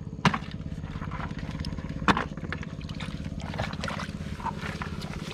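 Small engine-driven water pump running steadily, draining the pond. Two sharp impacts cut through it, one just after the start and one about two seconds in.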